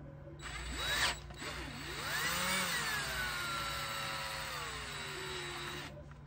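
DeWalt cordless drill with a 31/64-inch bit spinning in the freshly drilled drain-plug hole of an aluminium oil pan. A short spin-up comes about half a second in, then a longer run whose whine rises and then slowly sinks, stopping near the end.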